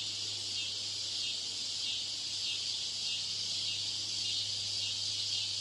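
Steady high-pitched hiss with a low hum underneath, unchanging throughout: deliberately added noise simulating a poor exam-hall broadcast system.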